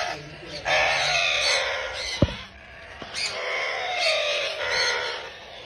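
A group of chicks peeping and chirping, with a short lull about two seconds in. A single dull knock sounds about two seconds in.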